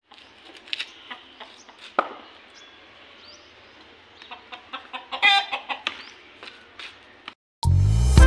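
Scattered chicken clucking over a quiet outdoor background, with a single sharp knock about two seconds in. Loud music cuts in suddenly near the end.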